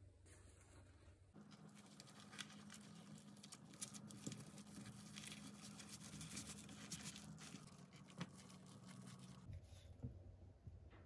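Faint rustling and light clicking of a bamboo rolling mat as a kimbap roll of rice and seaweed is rolled and pressed by hand, over a low steady hum. The sound starts about a second in and stops shortly before the end.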